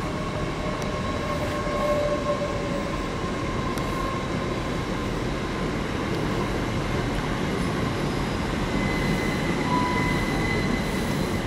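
A train running on the line, a steady rumble with faint high thin tones from the train coming and going over it.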